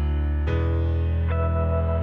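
Instrumental background music with held chords, changing chord about half a second in and again a little after one second.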